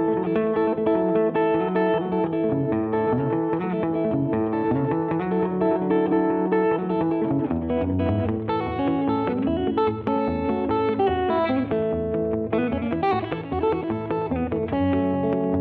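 Background music played on guitar: plucked guitar notes throughout, with a low bass part coming in about halfway through.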